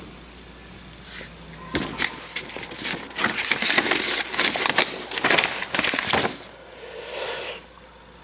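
A paper instruction leaflet being unfolded and handled, crinkling and rustling for about four seconds from about two seconds in.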